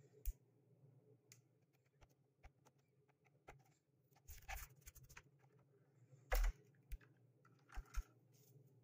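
Hands handling plastic stationery packaging: scattered light clicks and short rustles of plastic, the loudest a brief clatter about six and a half seconds in.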